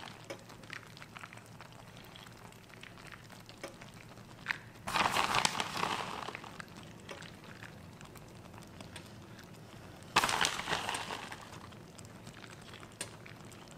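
Shredded mozzarella being handled and sprinkled over noodles in a frying pan: two short bursts of rustling, one about five seconds in and one about ten seconds in, with faint crackles and clicks between.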